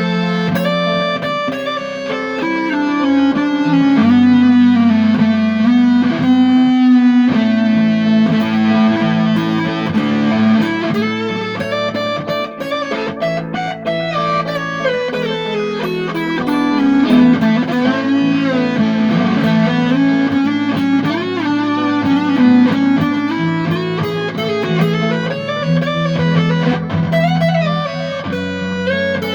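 Electric guitar played through a fuzz pedal: thick, sustained distorted notes and lead lines, with several slow string bends that swoop the pitch up and back down.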